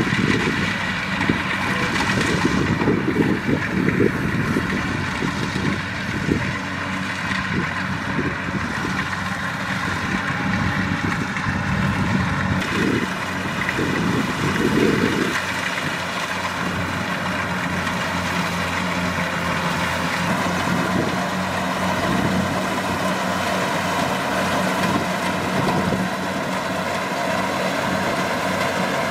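Kubota DC-70 Plus rice combine harvester running steadily, its diesel engine holding an even note, with uneven low rumbling through roughly the first half.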